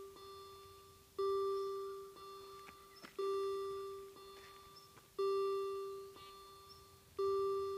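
Warning bells of a German BUES2000 level crossing ringing about once a second, louder and softer strikes in turn, each ringing on and fading. They warn that a train is coming and that the barriers are about to lower.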